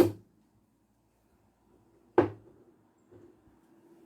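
A sharp knock at the start and another about two seconds in, each ringing briefly: a kitchen container knocking against the counter while water is added to the garri.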